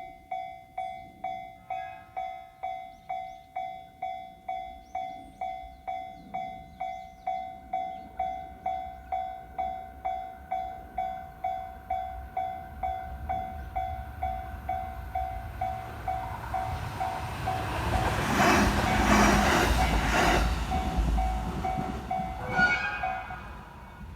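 Japanese railway level-crossing warning bell ringing in a steady, evenly spaced ding-ding-ding, about one stroke every 0.7 seconds. A train passes over the crossing, its rumble and rattle building from about 15 seconds in and loudest around 19 to 21 seconds in. The bell stops shortly after the train has gone.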